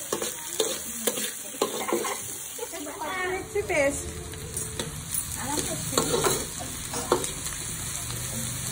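Diced onions sizzling in hot oil in a black iron kadai, with a metal spatula scraping and knocking against the pan as they are stirred. A brief squeak is heard about three and a half seconds in.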